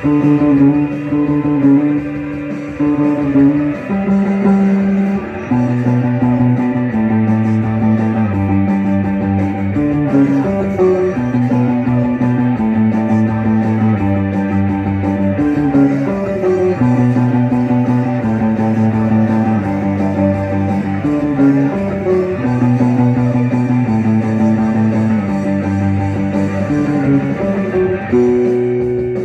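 Rock music: electric guitar and bass guitar playing a repeating riff of held notes.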